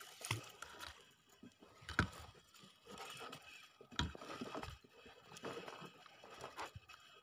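Faint, irregular knocks and clicks, a few seconds apart, with louder ones about two and four seconds in.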